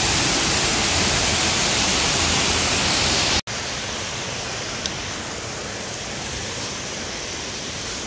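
Small waterfall spilling over rock, a loud steady rush of water. About three and a half seconds in, it cuts off abruptly and a quieter, steady rush carries on.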